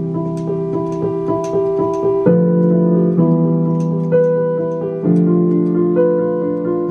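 Electric piano or keyboard music: sustained chords that change every second or two, with faint light ticks above them about twice a second.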